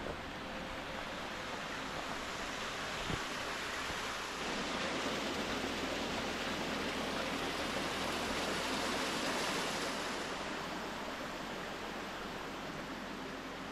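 Small waves washing on a shoreline: a steady rush of water that swells for several seconds around the middle and then eases off.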